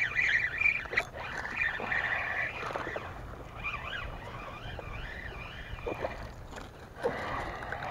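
Birds chirping and calling, short wavering chirps one after another over a low steady outdoor rumble.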